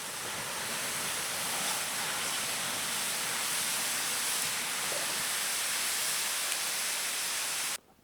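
Steady, even rushing hiss with no rhythm or tones, which cuts off suddenly near the end.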